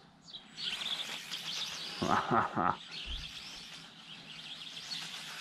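Birds chirping, with a brief louder pitched sound about two seconds in.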